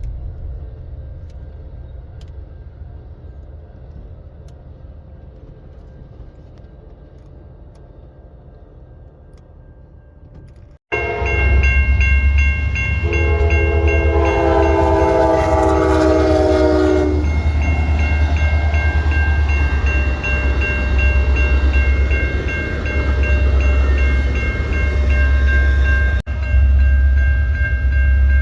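Train sounds that die away over the first ten seconds. About eleven seconds in, a diesel locomotive is heard close by, with a heavy low engine rumble, and sounds its multi-note horn for about four seconds. After the horn, a steady high ringing continues over the passing train.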